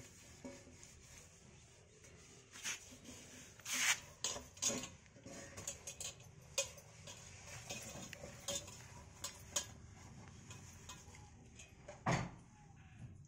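Metal dishes clinking and knocking against each other: a dozen or so separate sharp clinks spread irregularly through, the loudest a little before halfway and near the end.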